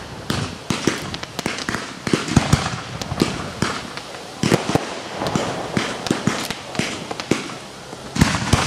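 Fireworks going off overhead: a dense, irregular series of sharp bangs and pops from bursting aerial shells.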